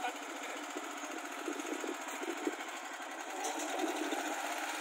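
Small compact tractor's diesel engine running with a fast, even chugging rhythm.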